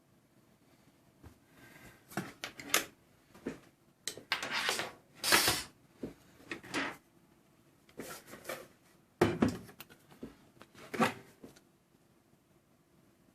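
Computer parts being handled and set down on a hard surface: an irregular run of knocks and clatters mixed with a few longer rustling or scraping sounds.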